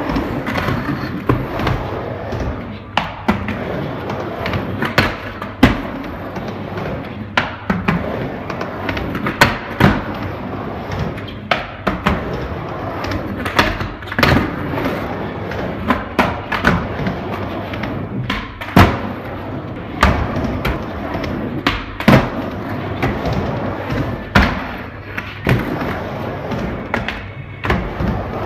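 Skateboard riding a mini ramp: the wheels rumble steadily as the board rolls back and forth, broken every second or two by sharp clacks and thuds as the board strikes the ramp and its metal coping at the turns.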